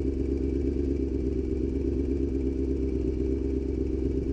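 Honda CBR600F4i's inline-four engine idling steadily while the motorcycle waits at a stop.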